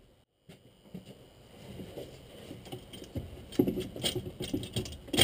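Metal clunks, scrapes and rattles as a Land Rover Defender's clutch pedal housing and master cylinder are twisted and worked up through a tight gap in the engine bay, with a few louder knocks in the second half.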